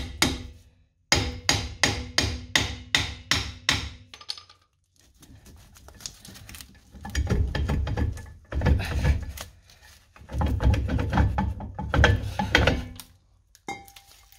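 Hammer blows on a stuck rear brake drum to free it: a quick, even run of about nine ringing metal strikes in the first few seconds, then several seconds of duller, rougher knocking and scraping as the drum is worked loose.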